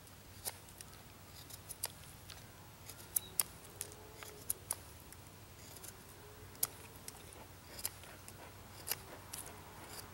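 Bark River Bravo 1.5 knife (A2 steel blade) whittling a stick of wood: a run of short, crisp shaving cuts at an irregular pace, well over a dozen strokes.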